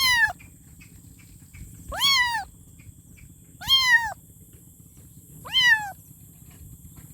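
Kitten meowing: four short, high-pitched meows about two seconds apart, each rising and then falling in pitch.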